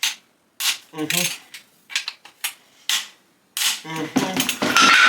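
Metal hand tools clinking and clanking against engine parts in a series of short, irregular bursts.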